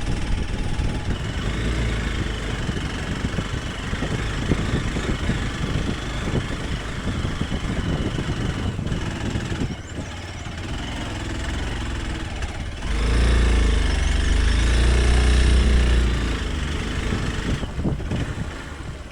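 Hero Xpulse 200 Pro's single-cylinder engine running as the motorcycle is ridden on a rough trail. About two-thirds of the way through, the throttle opens and the engine gets louder for a few seconds, then eases off.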